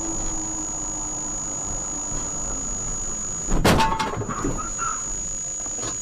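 Steady road noise with a thin high whine, then about three and a half seconds in a sudden loud crash of a vehicle collision, followed by a few brief squeals.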